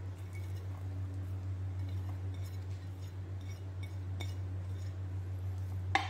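Light clinks and taps as sliced onion, ginger and garlic are tipped from a ceramic plate onto fish in a pan, with one sharper clink near the end. A steady low hum runs underneath.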